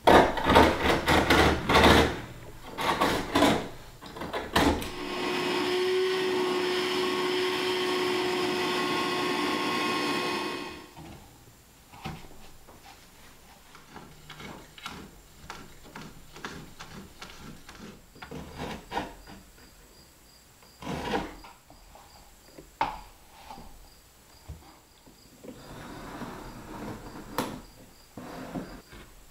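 Laminate flooring planks being worked by hand: a quick run of loud knocks at the start and another short run a few seconds later, then a power tool runs steadily for about six seconds and stops. After that, quieter scattered taps, clicks and scraping as a plank is handled and marked with a speed square.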